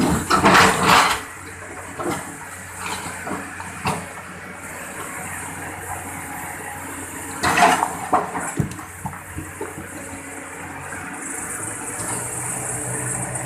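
Water splashing and running, with louder splashes in the first second and again about seven and a half seconds in, over a steady rush.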